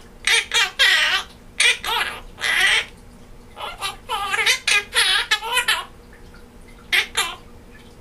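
Quaker parrot (monk parakeet) giving a string of short, high, wavering talk-like calls and laughs in quick bursts, with brief pauses between groups.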